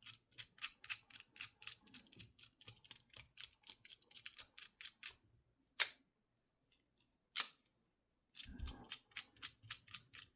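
Number dials of a Master Lock 878 combination padlock being turned, clicking from number to number about four times a second. Two much louder single sharp clicks come in a pause in the middle, a second and a half apart.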